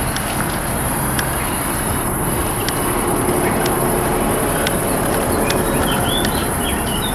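Evening lakeside ambience: a steady high hiss over a low rumble, with scattered faint clicks and a few short bird calls near the end.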